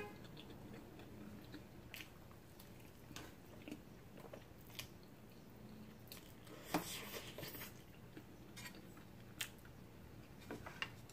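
Faint close-up eating sounds: a person slurping and chewing noodles, with scattered light clicks and a short cluster of slurps about seven seconds in.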